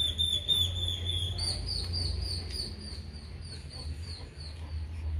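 Boxer dog whining: one long high whine, then a run of short high squeaks about three a second, over a low rumble.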